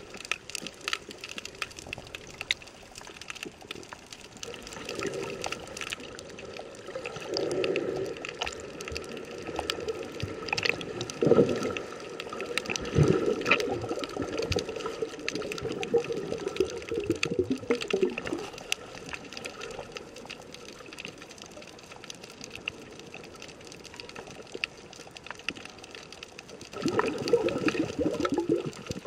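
Water sloshing and gurgling, heard through an underwater camera, in uneven crackly bursts a few seconds apart over a steady hiss. The bursts are loudest about a third of the way in and again near the end.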